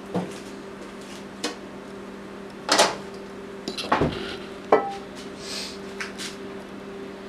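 A few knocks and clatters as a cooking pot and a ceramic bowl are handled and set down on a tiled counter, the loudest about three and four seconds in, over a steady hum.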